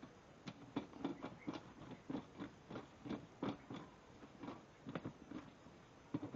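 Faint, irregular clicking from a socket ratchet as a bolt and nylon lock nut are tightened on a steel stand frame, about three clicks a second.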